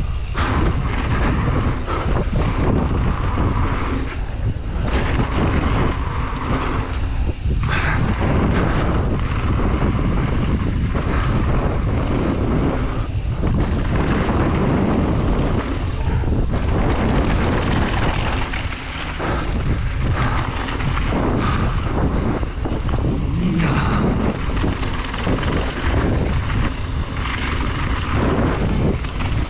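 Steady wind rushing and buffeting the microphone while a downhill mountain bike runs fast down a wet trail, with brief lulls every few seconds.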